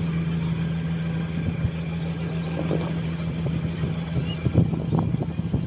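A river ferry's engine running with a steady low hum, joined by a few faint knocks in the second half.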